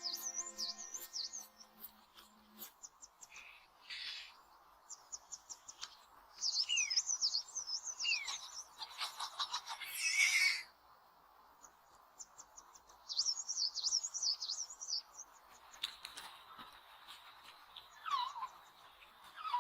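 A songbird singing in repeated high, twittering phrases with a few falling whistles between them. A brief rushing noise comes about ten seconds in.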